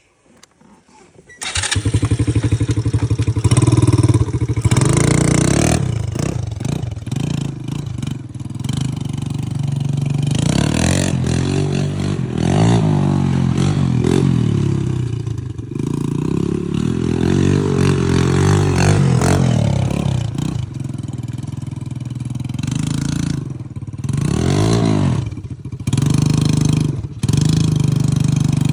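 125cc quad bike (ATV) engine running and being revved as the quad is ridden, its pitch rising and falling again and again. The engine sound comes in suddenly about a second and a half in.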